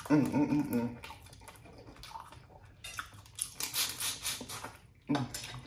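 A person sucking and slurping on a boiled crawfish, a wet hissing slurp from about three seconds in that lasts over a second, after a brief vocal sound at the start.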